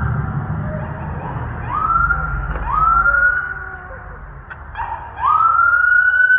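Emergency vehicle siren sounding in short rising whoops, each climbing quickly and levelling off, about four times, the last held longer. A low rumble underneath drops away near the end.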